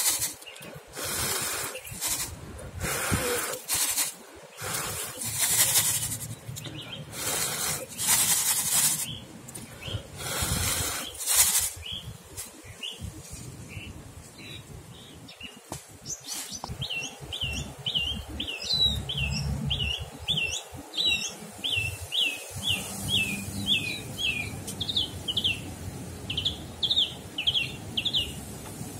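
Repeated puffs of breath blown across a plastic tray of perilla seeds to winnow off the chaff, about one puff a second. Partway through the puffs stop and a small songbird takes over with a long run of quick, high chirps.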